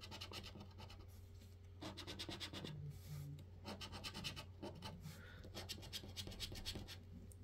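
Scratchcards being scratched: faint, quick rasping strokes across the scratch-off panel, in short bursts with pauses between them, over a low steady hum.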